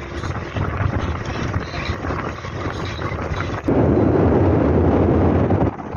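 Wind buffeting the microphone on the open deck of a moving tour boat, with the boat's low running hum underneath. A louder, rougher burst of wind rumble starts suddenly about four seconds in and cuts off just before the end.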